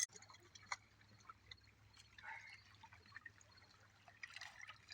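Faint water dripping and splashing, with small scattered ticks.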